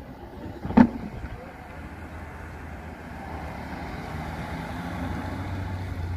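A classic Morgan sports car's engine running at low speed as the car manoeuvres around the cones. The engine gets louder over the second half as the car passes close by. There is a single sharp thump about a second in.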